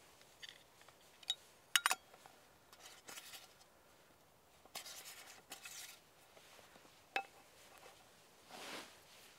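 Small round metal tin handled by hand: several sharp metallic clicks and clinks as its lid is worked shut, with light scraping between them. Near the end comes a soft rustle from a leather drawstring pouch.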